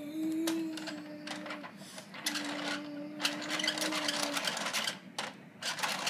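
Plastic toy garbage truck being worked by hand: quick clicking and rattling of its plastic rear parts and toy bin. A steady low hum runs under it, once for about a second near the start and again for about two seconds in the middle.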